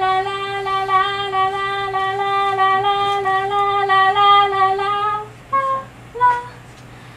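A voice singing one long held note, sliding up into it at the start and holding it steady for about five seconds, then two short higher notes.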